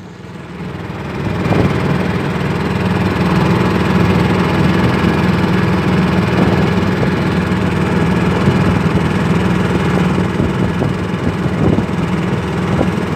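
An engine that rises in level over the first second or two, then runs steadily at a constant speed.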